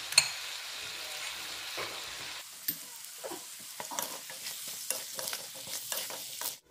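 Chicken, potatoes and spice paste sizzling in a black iron kadai while a spatula stirs and scrapes through them. The scraping clicks come more often from about halfway in, and the sound cuts off suddenly near the end.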